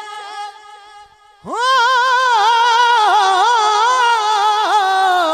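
Unaccompanied naat singing by a male reciter. A held note fades out, and after a pause of about a second he starts a long, high, wavering note with melodic ornaments.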